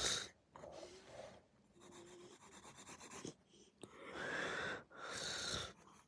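Pencil scratching and shading on lined paper. It turns to louder rubbing close to the microphone about four seconds in, as a hand moves right up to the phone.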